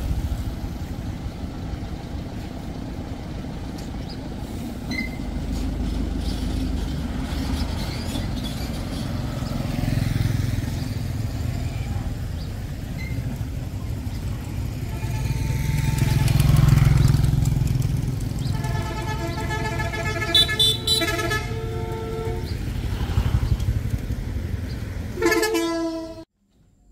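Road traffic with motor vehicles running steadily, and a horn honking several times in the last third. It cuts off suddenly near the end.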